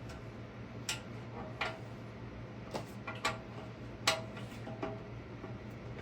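About six sharp metallic clinks at uneven intervals, each with a short ring, from hand tools knocking against the lathe's metal bed and stand while it is being bolted together.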